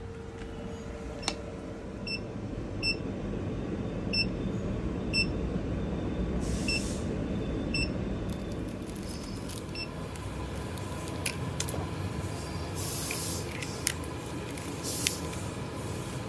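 Short electronic beeps from the control panel of an SK Dry Ice 6000 low fog machine as its buttons are pressed, five in the first half, each a brief high tone. After that come scattered handling clicks and a few short hisses.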